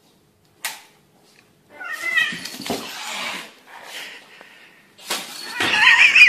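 A cat's warbling warning yowls: a shorter one about two seconds in and a louder one near the end, as the cat squares up to a puppy.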